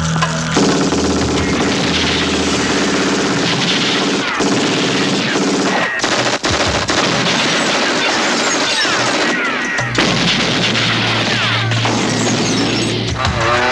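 Rapid, almost continuous movie gunfire from automatic weapons and handguns, with a music score under it during the first few seconds.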